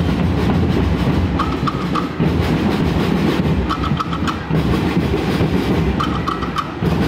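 Marching band drums playing a steady, dense marching beat. A short high-pitched figure repeats about every two seconds over the drumming.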